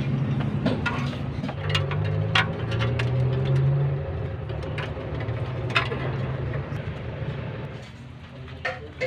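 A vehicle engine running steadily in the background, its low hum shifting a little in pitch and fading near the end, with scattered sharp clicks and rustles as a bundle of wires is handled.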